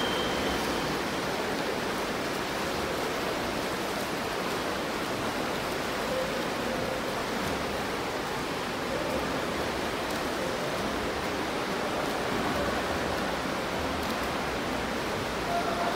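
Steady wash of splashing water from several swimmers doing front crawl, echoing in an indoor pool hall.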